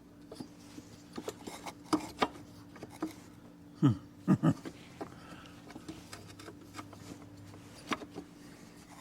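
Scattered light clicks and knocks of metal seat-suspension parts being handled and worked loose, with a louder cluster of knocks about four seconds in, over a faint steady hum.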